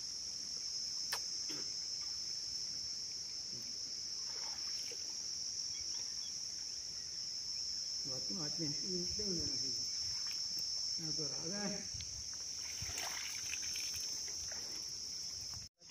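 Insects droning in one continuous high-pitched buzz, with a man's voice briefly in the middle. The buzz cuts out for a moment near the end.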